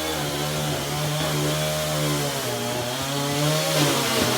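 Chainsaw running while cutting through a couch, its pitch rising and falling as it works through the material.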